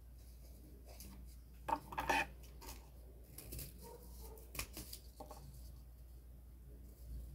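Small pieces of cardboard being handled and cut with scissors: scattered light clicks, snips and rustles, the loudest rustle about two seconds in and a few sharp clicks a little after the middle.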